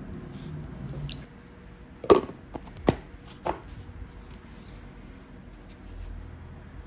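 Small objects being handled on a table, with light rustling and three sharp taps or knocks, the first the loudest, about two to three and a half seconds in.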